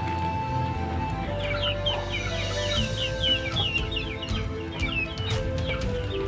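Background music of held, slowly changing notes, with rapid high-pitched bird chirps coming in about a second in.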